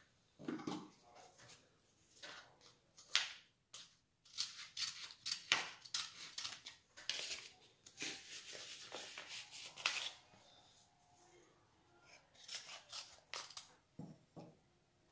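Paper seed packet rustling and crinkling in the hands as it is cut open with scissors: a run of short crackling snips and rustles, densest from about four to ten seconds in.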